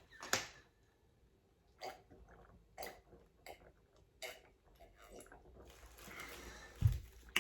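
A person chewing and biting crunchy cookies, a few short separate crunches a second or so apart, with a low thump near the end.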